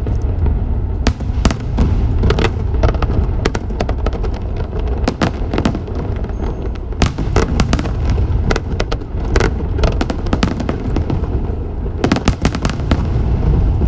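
Fireworks display: many sharp cracks and bangs going off in quick, irregular succession, over a continuous low rumble.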